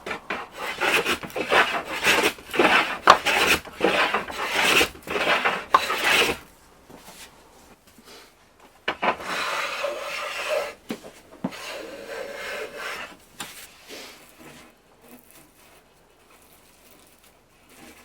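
No. 5½ hand plane taking fine shavings off a sapele staff blank: a quick run of short strokes for about six seconds, then after a pause a few longer, quieter strokes that fade away.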